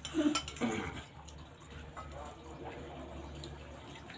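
A few light clicks of a metal spoon on a plate while eating, with a short spell of voice in the first second, then a steady low background hum.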